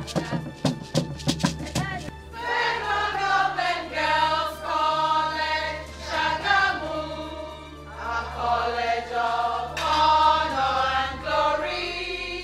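Rhythmic drum and rattle percussion for about two seconds, then a group of women singing together in chorus.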